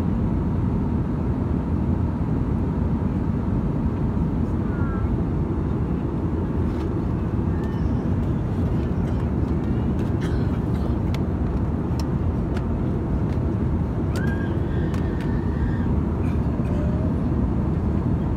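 Steady low roar inside an Airbus A320-214's cabin in flight, the CFM56 engines and airflow heard from a passenger seat during the climb. A few faint clicks from the seat-pocket safety card and tray being handled sound over it.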